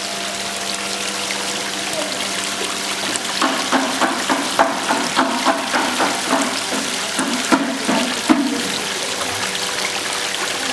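Water pouring steadily over a decorative waterfall fountain, with a steady hum underneath. In the middle comes a run of short, sharp sounds, about two a second.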